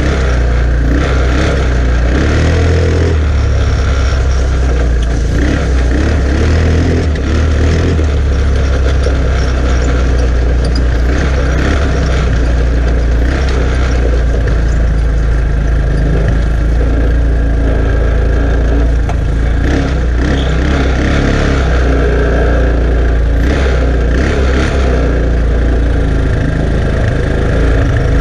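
Chinese 150 cc ATV engine running steadily while towing a small trailer over a rough dirt track, with occasional knocks and rattles from the trailer and its drawbar.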